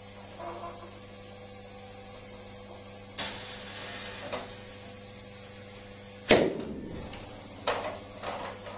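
Scattered knocks and clicks from a homemade chain-reaction machine running: a knock about three seconds in, a small click a second later, then the loudest, a sharp clatter a little past six seconds that rattles briefly, and two smaller knocks near the end. A steady faint hum runs underneath.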